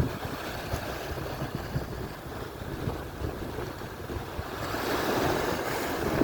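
Atlantic surf washing on the shore, with wind buffeting the microphone; a wave breaks and rushes in louder about three-quarters of the way through.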